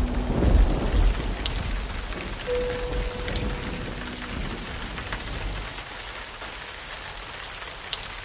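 Steady rain falling, with a low rumble in the first second or so.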